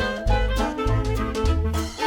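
Upbeat swing-style background music with brass and a bouncing bass line.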